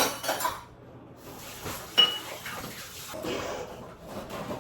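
Kitchen tap running into the sink, a steady hiss, with a sharp clink of a dish or utensil about two seconds in.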